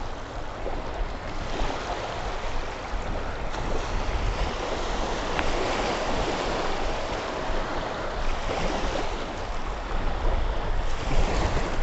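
Small sea waves washing steadily onto a flat sandy shore, with wind rumbling on the microphone.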